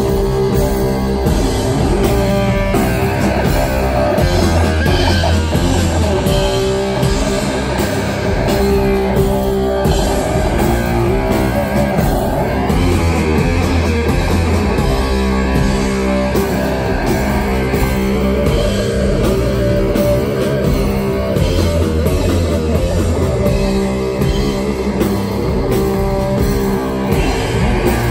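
A stoner-doom metal band playing live: heavy electric guitar and bass through stacked amplifiers over a drum kit, loud and dense, with a slow riff whose low end swells about every eight seconds.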